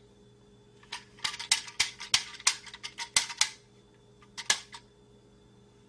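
A child's fingers tapping and clicking on an iPad screen and its rubber case while working an AAC communication app: a quick flurry of sharp taps for about two and a half seconds, then two more a second later.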